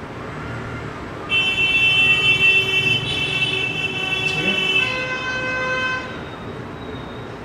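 Vehicle horn honking: one long held note of about three and a half seconds, which changes to a lower-pitched horn for about another second before it stops.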